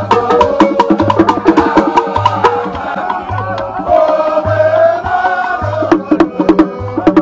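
Music: a chanted, sung voice over quick wood-block-like clicks and a low drum note that recurs about once a second.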